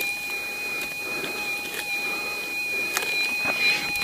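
Minelab SDC 2300 gold detector's steady electronic threshold tone, with scattered small clicks of stones being picked and scraped aside by hand.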